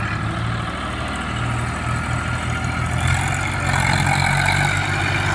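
Swaraj 744 FE tractor's three-cylinder diesel engine running under load as it tows a tractor stuck in mud out on a rope. The engine note grows fuller and slightly louder about three seconds in.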